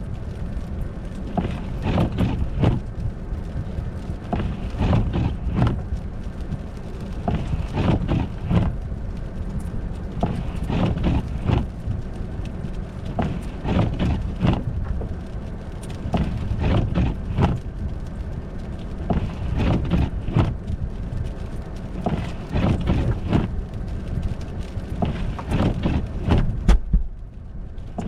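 Footsteps crunching on snow and ice, about one to two steps a second and slightly uneven, over a steady low rumble of wind on the microphone.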